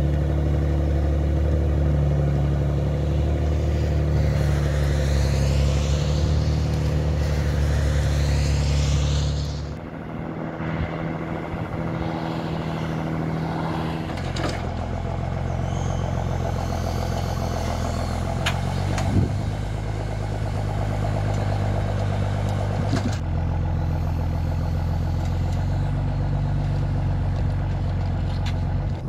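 Homemade forwarder's engine running steadily and loud as the loaded machine works through mud. About ten seconds in it cuts to a quieter, steady engine hum with a few sharp knocks.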